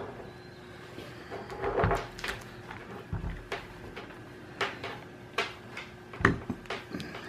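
Klein Tools digital multimeter and its test leads being handled on a wooden workbench: scattered clicks and knocks, the loudest about six seconds in.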